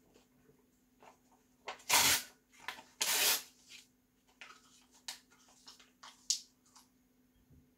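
A sheet of printed paper being handled and torn: two loud rips about two and three seconds in, then smaller crinkles and crackles as a strip of it is put in the mouth and chewed.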